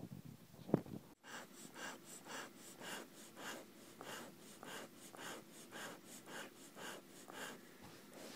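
A brief knock near the start, then a Siberian husky breathing close to the microphone in a steady rhythm, about two breaths a second.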